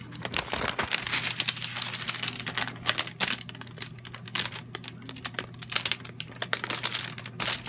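Parchment paper crinkling and crackling as a folded sheet is peeled open and handled by fingers, in quick irregular rustles and ticks.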